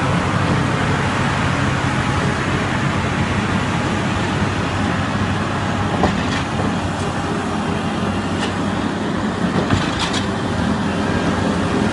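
Engine of a tractor-loader with a wide snow pusher plow running steadily as the machine works and drives off, with a few light ticks about halfway through and near the end.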